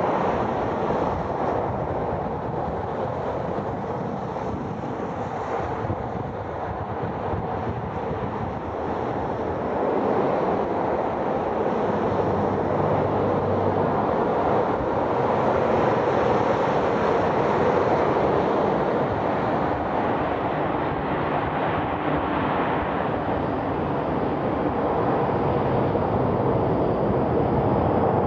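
Airbus A380-861 jet noise from its Engine Alliance GP7200 engines: a steady rushing noise with wind buffeting the microphone, growing louder about ten seconds in.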